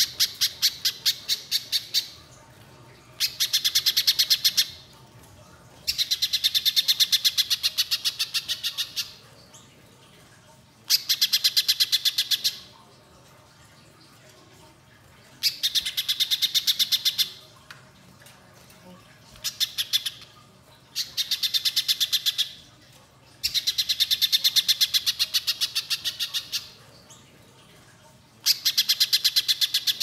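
Little spiderhunter singing: runs of rapid, evenly repeated high notes, each run lasting one to three seconds, about nine runs with short pauses between them.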